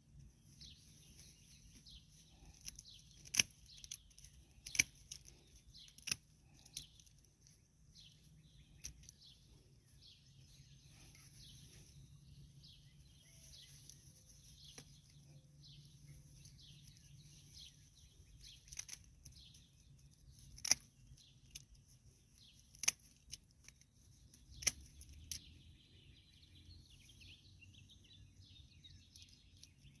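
Garden scissors snipping herb stems, likely oregano: about ten sharp cuts at irregular intervals, grouped in the first third and again towards the end. Small birds chirp continually behind them.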